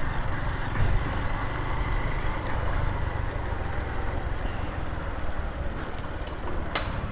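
Honda Titan 150's single-cylinder four-stroke engine running at low speed, with a sharp click near the end. It carries the small engine noise ('zoadinha') that the owner says persists after the clutch bearing was replaced.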